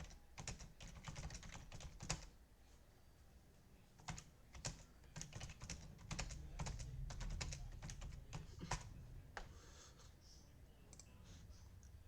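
Faint typing on a computer keyboard: irregular runs of key clicks, with a pause of about two seconds between the two main runs.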